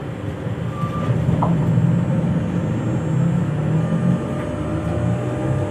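SNCF Z 20500-series (Z2N) double-deck electric multiple unit standing at a platform, its onboard equipment running with a steady low hum. A short high tone sounds about a second in, and a thin high tone sets in about four seconds in.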